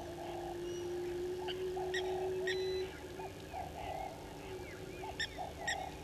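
Several wild birds calling in bushveld: a low call repeated about once a second, short whistled notes and sharp high chips. A steady low drone runs under them for the first three seconds, then stops.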